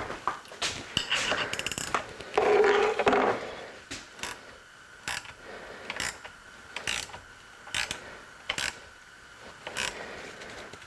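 Hand tools working on a Harley-Davidson Ironhead engine being stripped down: sharp metallic clicks repeat about once a second, with a louder rattling scrape about two seconds in.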